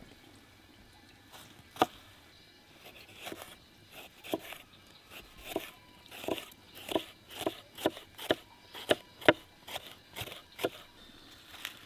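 A knife chopping or cutting food on a board: an irregular string of sharp chops and crunches, about one or two a second, with the loudest about two seconds in and again near nine seconds.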